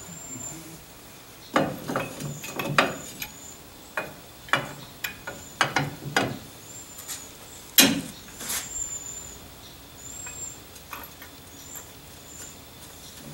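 Hand tools clanking and knocking on metal in irregular strikes, loudest about eight seconds in, then dying down. A faint high chirp repeats about once a second throughout.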